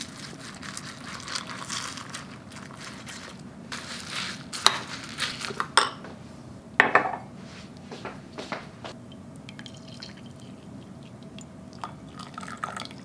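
Almond milk poured from a carton onto cereal in a ceramic bowl, then a metal spoon clinking against the bowl a few sharp times as the cereal is stirred. Near the end, coffee is poured into a ceramic mug.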